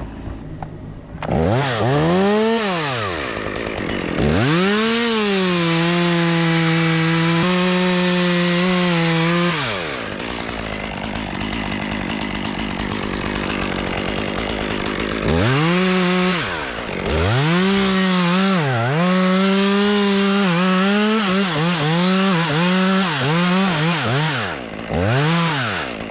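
Chainsaw revving up and held at speed for several seconds as it cuts, then a lull of about five seconds. After that it is revved in a quick run of short rises and drops.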